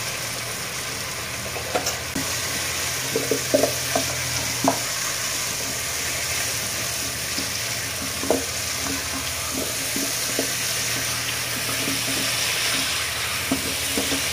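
Pumpkin cubes sizzling in oil and spice paste in a nonstick pot: the paste is fully cooked down and the pumpkin is being fried in it. Steady sizzle with scattered knocks and scrapes of a slotted spatula stirring against the pot.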